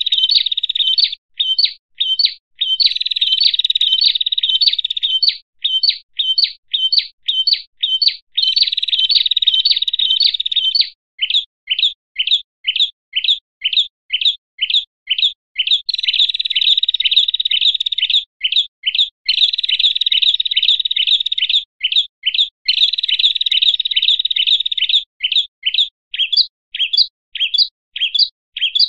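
Small songbirds, prenjak among them, giving noisy, agitated high-pitched chirps: stretches of dense, continuous twittering alternate with runs of separate sharp chirps about four a second. This is the excited 'ribut' calling used as a lure to stir up other prenjak.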